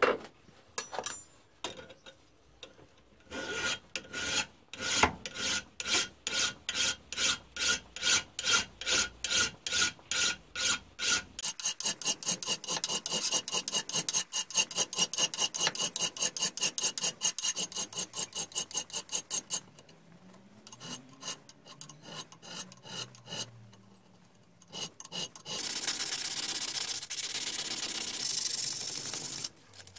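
A flat hand file rasping across the cast-iron jaws of a Stanley mini anvil vice, in even back-and-forth strokes: about two a second at first, then quicker, about four a second, with a ringing tone on each stroke. The strokes stop about two-thirds of the way in; near the end comes a few seconds of steady rasping hiss.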